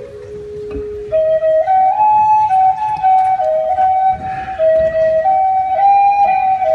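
A wooden end-blown flute playing a slow solo melody: a held low note, then from about a second in a line of held notes stepping up and down among a few nearby pitches.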